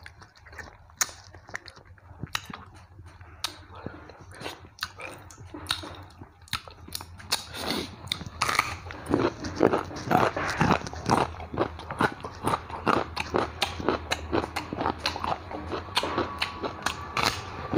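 Close-miked chewing, with light clicking for the first several seconds, then, from about eight seconds in, a denser run of crisp crunches as a raw carrot is bitten and chewed.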